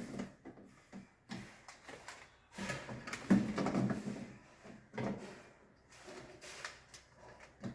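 Plastic miniature circuit breakers being handled and sorted: irregular clicks, knocks and rustling, with the loudest clatter about three seconds in.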